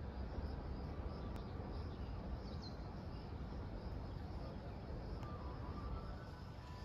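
Outdoor park ambience: a steady high insect buzz and a few brief bird chirps over a low steady rumble.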